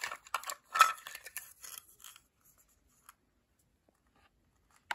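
Plastic toy food being handled over a plastic tray: a few short clicks and rustles over the first two seconds, then quiet, with one sharp click near the end.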